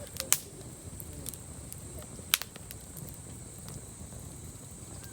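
Wood campfire burning, with two sharp pops about two seconds apart and a few fainter crackles.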